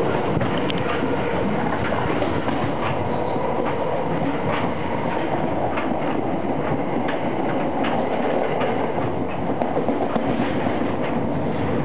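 Passenger rail car running at speed, heard from inside the car: a steady rumble and rattle, with the wheels clicking irregularly over rail joints.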